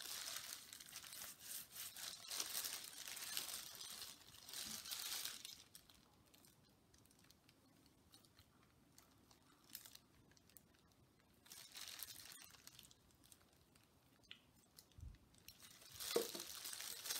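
Crinkling and rustling of loose disposable plastic gloves as hands handle a dye-soaked fabric mask and squeeze a dye bottle. Busy for the first five seconds or so, then quieter with a few short bursts.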